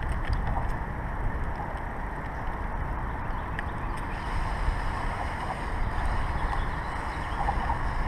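Steady rumbling noise with wind buffeting the microphone.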